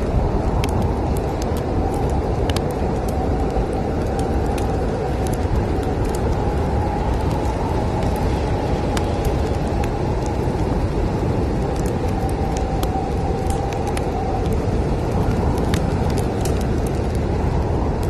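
Snowstorm wind blowing in a steady low rush, with a faint whistling tone through the middle of the stretch, over a log fire crackling with frequent sharp pops.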